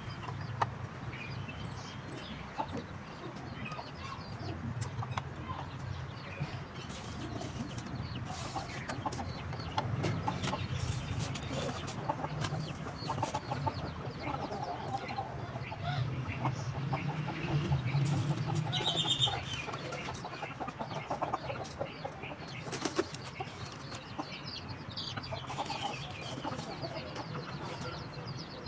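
Chickens clucking, with light rustling of dry grass and soft taps as hen eggs are set one by one into a grass-lined cardboard nest box.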